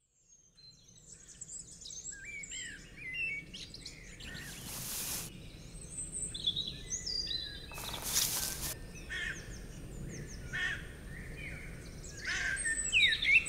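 Forest ambience sound effect: many songbirds chirping and whistling over a low steady background noise, fading in over the first couple of seconds. Twice a hiss about a second long rises over the birds, some four seconds apart.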